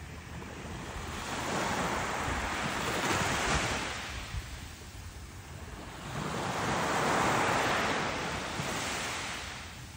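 Surf breaking and washing up a sandy beach in two slow swells, one peaking about three seconds in and another around seven seconds. Wind rumbles on the microphone underneath.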